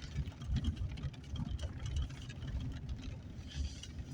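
Vehicle driving slowly on a dirt road, heard from inside the cab: an uneven low rumble of engine and road, with faint scattered rattles and ticks.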